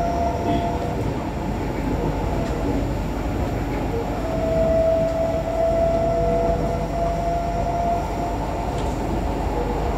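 SMRT C151C electric metro train heard from inside the carriage while running at speed: a steady rumble of wheels on rail with a steady whine, louder from about four to eight seconds in.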